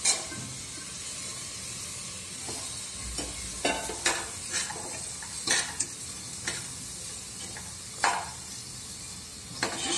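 A steel spoon stirring soaked kidney beans into hot masala in a pressure cooker, scraping against the pot several times, over a steady sizzle from the pan.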